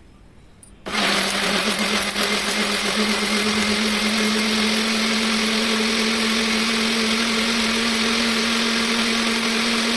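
Electric blender switched on about a second in, then running steadily: a constant motor hum over a whirring rush as it purées chopped tomatoes.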